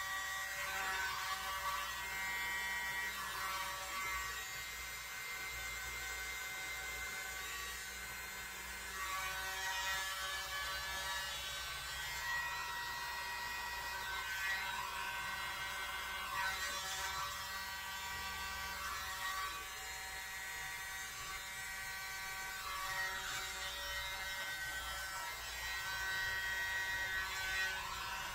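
Tiny corded electric mini blower (a 'world's smallest leaf blower') running steadily with a high buzzing whine and air hiss, wavering slightly in pitch, as it blows out wet acrylic paint.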